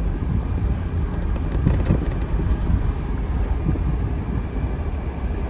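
A vehicle driving, with a steady low rumble of engine and road noise.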